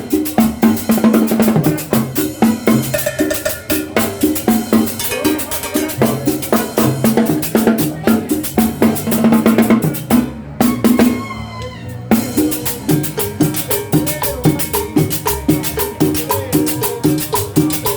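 Dance music with a steady, fast drum beat and cowbell. About ten seconds in the drums drop out for a brief break with a falling, gliding sound, then the beat comes back.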